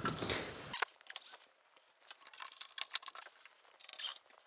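Faint, scattered small clicks and ticks of hands and a screwdriver working at the Casio CZ-1 synthesizer's side panel to unscrew it. A brief rustle at the start cuts off abruptly under a second in.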